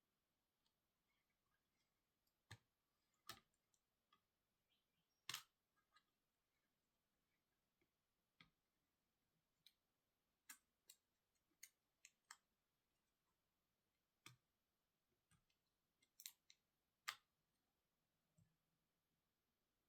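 Scattered small sharp clicks and taps, about fifteen at irregular intervals, from small tools, screws and parts being handled while a MacBook Pro laptop is taken apart.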